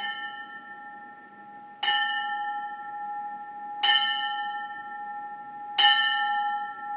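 Brass ship's bell tolled slowly by hand for the dead: three strokes about two seconds apart, each one left to ring on into the next.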